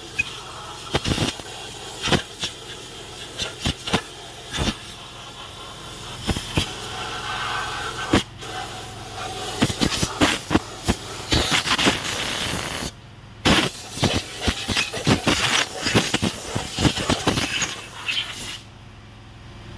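A hissing spray playing over the bare metal of an engine block being cleaned, with constant rapid crackling. It cuts out for a moment about two-thirds of the way through and again near the end.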